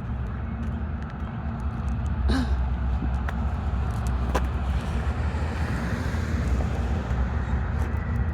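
Diesel locomotive engines of a coal train rumbling steadily, slowly getting louder, with a few faint clicks.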